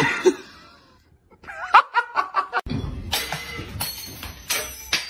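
A sharp sudden sound that fades out, then a person laughing in short bursts for about a second. After an abrupt change, a steady rushing noise with several sharp knocks and clatter.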